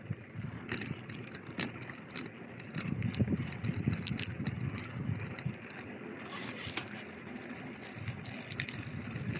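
Bicycle being ridden: a steady low rumble from the tyres on the ground with many light rattles and clicks from the bike's parts.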